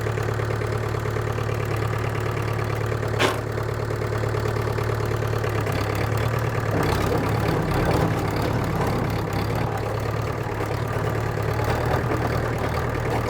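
1963 International TD5 crawler dozer's diesel engine running steadily, with one sharp click about three seconds in.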